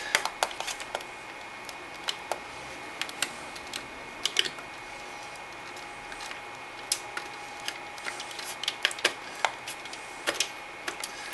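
Irregular light clicks and knocks of a plastic CPU water-cooler pump block being turned and seated in its metal retaining ring by hand, over a faint steady high tone.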